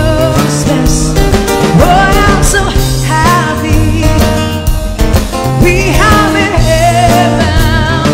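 A live band playing a song: a woman sings with vibrato over guitar, steady low notes and a drum kit.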